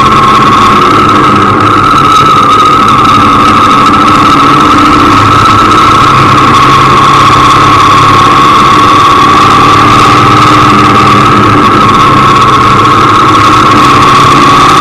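Motorcycle engine running steadily while riding slowly along a narrow road, recorded very loud, with a constant high whine over the engine note and no change in speed.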